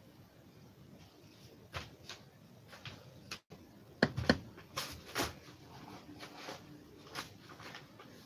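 Scattered light clicks and knocks of things being handled near the microphone. A cluster of sharper knocks comes about four to five seconds in, as the camera is jostled.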